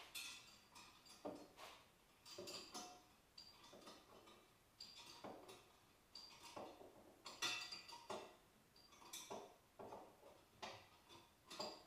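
Faint, irregular metallic clicks and clinks of a wrench working the two nuts and bolts that fasten a dyno's pump to its mount on a go-kart.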